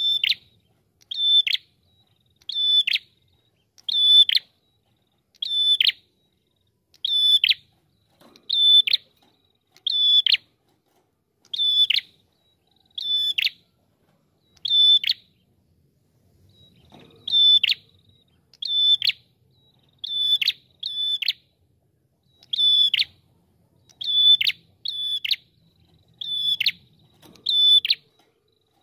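Ashy tailorbird (red-headed prenjak) calling: a short, sharp note that drops in pitch, repeated steadily about once every second and a half, with one longer pause about halfway through.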